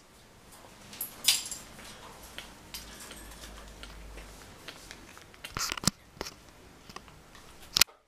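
African grey parrot making beak clicks and crackles at close range, irregular and sharp, with a loud one about a second in, a cluster near six seconds, and another just before the end.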